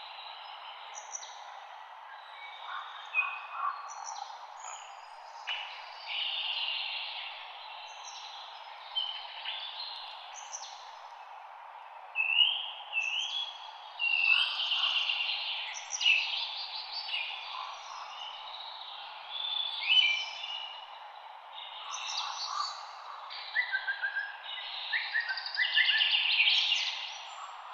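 Several songbirds singing together: overlapping chirps, trills and whistled phrases, busier and louder in the second half, over a steady background hiss of light wind in leaves.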